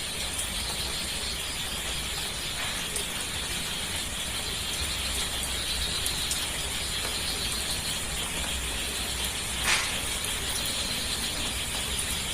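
Steady high-pitched buzzing hiss with one short sharp click about ten seconds in.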